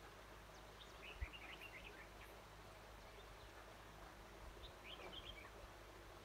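Faint song of a red-whiskered bulbul: two short phrases of quick warbled notes, about a second in and again about four and a half seconds in. A single brief low thump sounds just after the first phrase begins.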